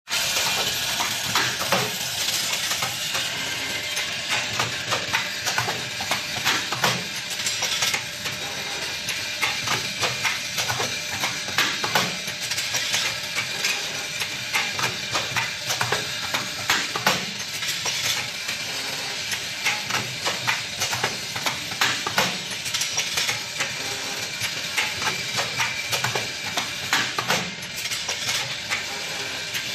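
Automatic bucket-handle making machine running: a steady hiss with frequent, irregular clicks and clatter from its feeder and wire-forming mechanism.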